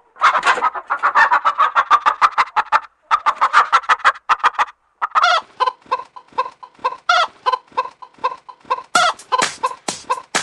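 Chicken clucks sequenced into an even rhythm like a novelty chicken-sound track. A fast run of several clucks a second breaks off briefly about three and five seconds in, then gives way to slower, evenly spaced clucks.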